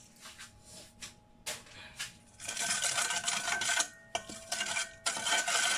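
A few faint clicks, then from about two and a half seconds in a metal spoon scraping and stirring a wet chili dressing around a stainless steel mixing bowl, in several strokes with short pauses, the bowl ringing with a steady tone.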